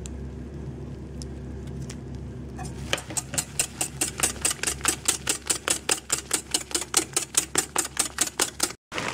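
A steady low hum, then, from about three seconds in, a wire whisk beating a loose egg and fromage blanc batter in a plastic bowl: quick, even strokes, about six a second. The sound cuts out briefly near the end.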